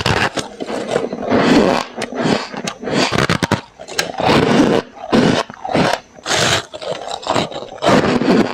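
Freezer frost being bitten and chewed, picked up close by a clip-on microphone: a run of irregular soft crunches, several each second.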